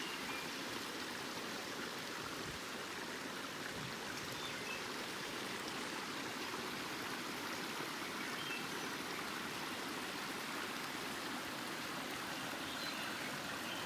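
Steady rushing of flowing water, like a stream running over rocks.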